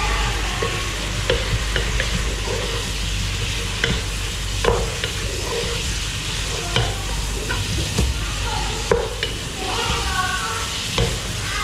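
Wooden spoon stirring and scraping chicken and chopped vegetables in a non-stick pot over a steady sizzle of frying, with irregular knocks of the spoon against the pot. The vegetables are being fried until their water dries off.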